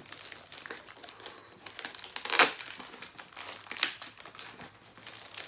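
Plastic wrapping crinkling and crackling as it is handled and pulled open by hand, with two louder crackles, about two and a half and four seconds in.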